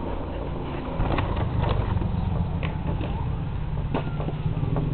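Rustles and light knocks of paper and a cardboard shipping box being handled, over a steady low rumble, with one louder thump at the very end.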